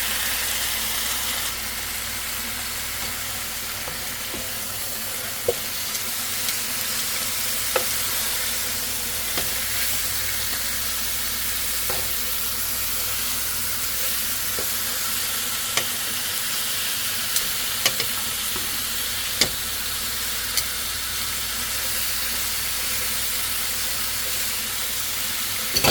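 Marinated chicken sizzling steadily in a pan over medium-low heat, with a few scattered sharp pops.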